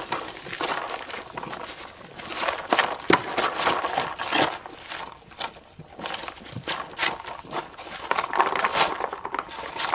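A horse crunching and chewing apples close by: a run of irregular, crisp crunches.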